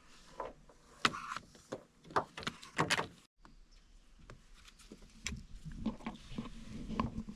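Scattered light clicks and knocks from handling 6-gauge battery cable and its crimp ends, with a brief break a little past the middle and quieter clicks after it.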